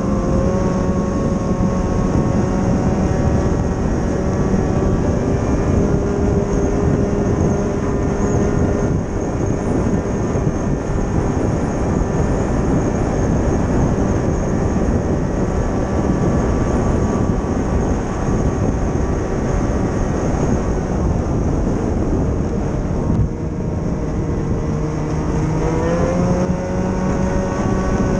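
Snowmobile engine running steadily at trail speed, with wind noise over it. About 23 seconds in the engine pitch drops briefly, then climbs back up near 26 seconds as it speeds up again.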